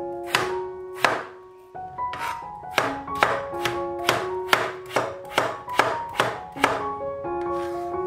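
Cleaver chopping raw peeled potato on a plastic cutting board: a dozen or so sharp knife strikes on the board, coming about two or three a second after a short pause. Piano music plays underneath.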